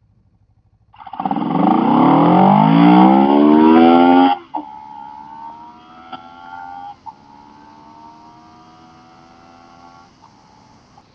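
650 motorcycle launched hard at full throttle for a power wheelie, the engine revving up steeply in pitch for about three seconds. The throttle snaps shut a little over four seconds in, and the engine carries on much quieter at a steady, slowly rising pitch.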